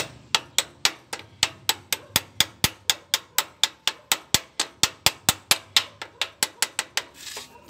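Ratchet wrench clicking in a steady run of about four sharp metallic clicks a second while tightening the bolt on a motorcycle's kickstarter lever; the clicks stop about a second before the end.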